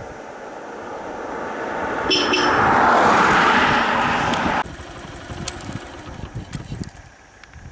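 A road vehicle passing close by: its tyre and engine noise swells over a couple of seconds, with a faint high whine near the peak, then cuts off abruptly about four and a half seconds in. Low wind rumble follows.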